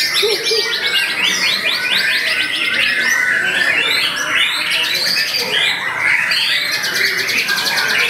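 White-rumped shama singing loudly and without a break: fast trills of rapidly repeated notes run into varied whistled phrases.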